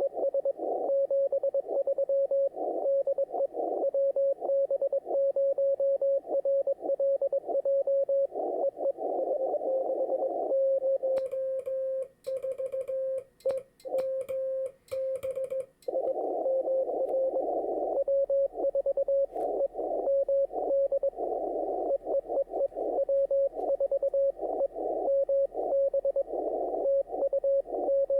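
Morse code (CW) on the 20-metre amateur band through an HF transceiver: a single mid-pitched tone keyed in quick dots and dashes over band hiss, stations in a Parks on the Air pile-up. About eleven seconds in, the hiss cuts out for some five seconds while a cleaner keyed tone plays, the rig's own sidetone as it transmits.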